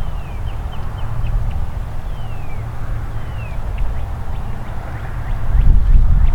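Wind buffeting the microphone in a low rumble, with a stronger gust near the end, while small songbirds chirp in quick high notes and a few longer falling whistles.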